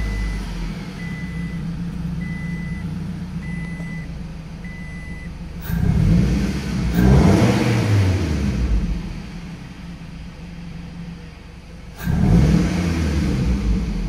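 Scion tC's four-cylinder engine running just after a start, heard from the driver's seat, its revs rising and falling twice, about six seconds in and again near the end. A newly fitted mass airflow sensor is being tried against rough idling, surging and hard starts. A dashboard chime beeps about once a second for the first five seconds.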